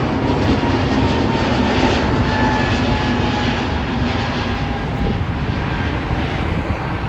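Airliner's jet engines overhead: a steady rumble with a faint whine that slowly falls in pitch, easing off a little in the second half.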